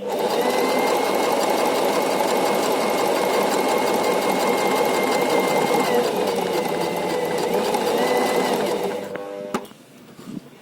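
Portable electric sewing machine running steadily and stitching, with a whine that falls away about two-thirds of the way through and comes back. It stops after about nine seconds.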